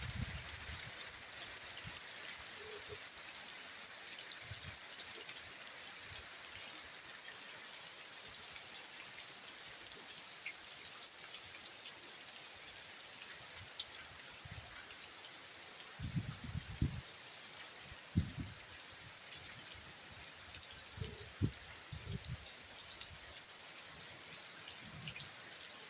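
Steady rain falling, an even continuous hiss, with a few low thumps about two-thirds of the way through.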